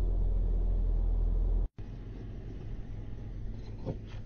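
Toyota Land Cruiser 300 crawling over rocks: a loud, steady low rumble up close. After an abrupt cut it is fainter, with a short crack near the end.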